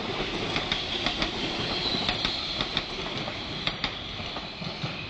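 Passenger train hauled by an SS8 electric locomotive passing close by at speed: a steady rushing rumble with many sharp, irregular clacks of the wheels over rail joints, growing slightly fainter near the end.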